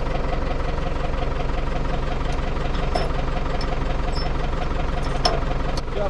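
Tractor engine idling steadily, with a couple of light clicks from the auger's hitch and chain being handled.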